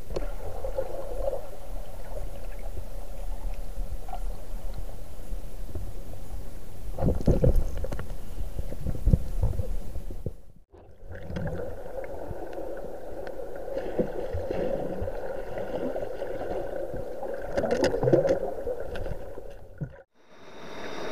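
Muffled underwater noise picked up by a camera in a waterproof housing moving through a river, with low knocks and rumbling from handling the housing in the middle. The sound cuts off suddenly twice.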